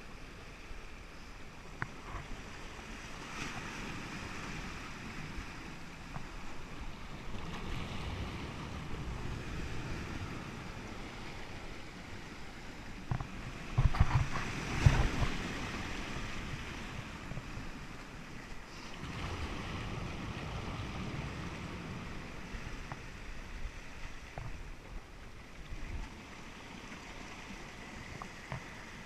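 Sea surging and churning through a rocky blowhole channel, swelling and easing several times, the loudest surge about halfway through, with wind rumbling on the microphone.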